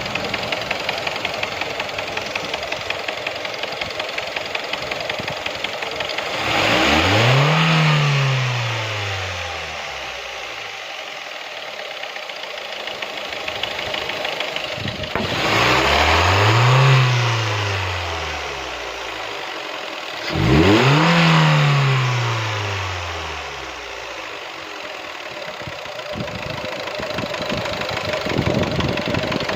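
Engine idling with a rapid, even knocking, revved three times, each rev rising and then falling back to idle. The knock is the engine knock being shown.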